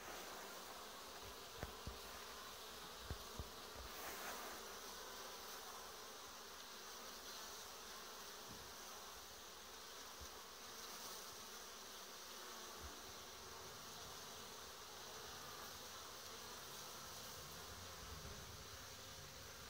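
Honeybees buzzing steadily at the entrance of a wooden hive as foragers fly in and out. A few light knocks in the first few seconds.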